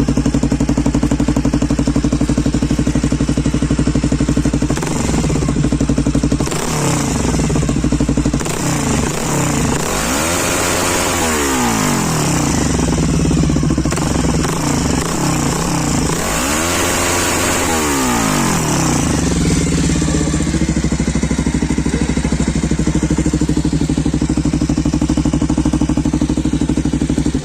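Bajaj Pulsar 220F's single-cylinder engine running through a newly fitted aftermarket exhaust, idling, then blipped up and back down twice, about ten and sixteen seconds in, before settling back to idle.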